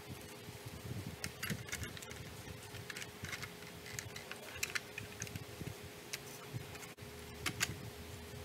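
Light clicks and taps of hands fitting parts and wires into a vented metal instrument enclosure, some in quick clusters, over a faint steady hum.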